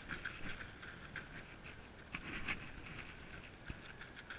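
Faint, irregular patter of light taps.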